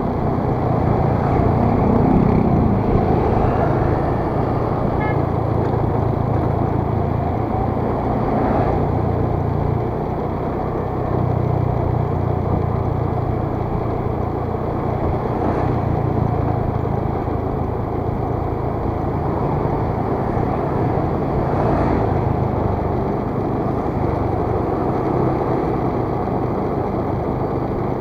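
Motor scooter engine running steadily while riding through town traffic, with wind and road noise on the microphone.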